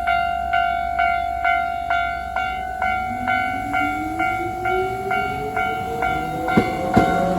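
Level-crossing warning bell ringing steadily, about two dings a second. About three seconds in, a train's motor whine joins it, rising steadily in pitch as the train accelerates, and near the end come a couple of sharp wheel clacks.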